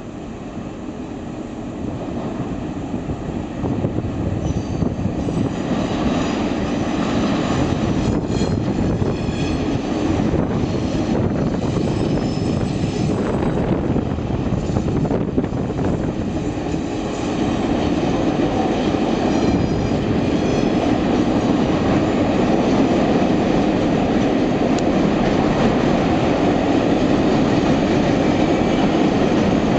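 Three EMD diesel-electric locomotives hauling a container freight train past, growing louder over the first few seconds as they approach, then a steady rumble of engines and rolling wagon wheels on the rails. Thin high wheel squeals come and go while the locomotives go by.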